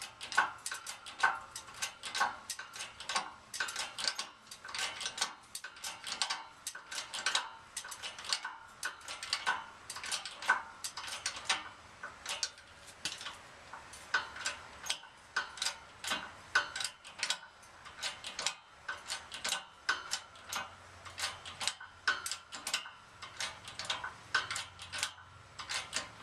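Shop press being worked against a seized gearbox output shaft: a steady run of sharp metallic clicks and ticks, a few a second and unevenly spaced, as the press is loaded up.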